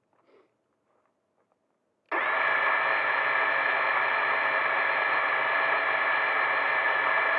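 Small quadcopter's electric motors starting about two seconds in and then holding a steady whine of several tones at idle while it sits on the ground before takeoff.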